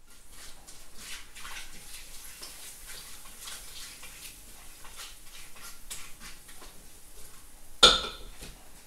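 Spoon and spatula stirring inside a slow cooker's pot: repeated light scraping and clicking against the pot, with one loud knock near the end.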